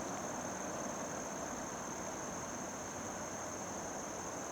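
Steady chorus of insects, a continuous high-pitched trill, over a faint even hiss.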